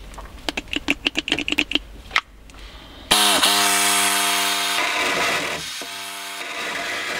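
Pneumatic air saw cutting the sheet-steel transmission tunnel. A quick run of clicks comes first. About three seconds in the saw starts with a loud, steady buzz over a hiss of air and cutting, then eases off and buzzes again briefly near the end.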